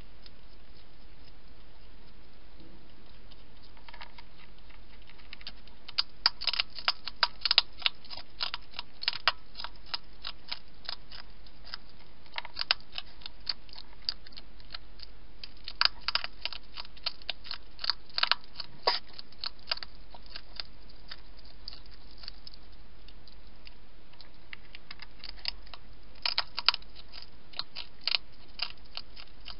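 European hedgehog chewing and crunching food, in several bouts of quick, sharp crunches with pauses between, the first starting a few seconds in.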